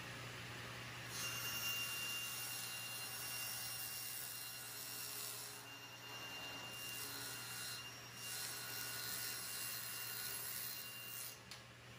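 Table saw running and ripping a sheet of 1/4-inch plywood: the blade bites in about a second in, adding a hiss and a steady high whine over the motor's hum, which dips briefly a few times as the sheet is fed and eases off near the end.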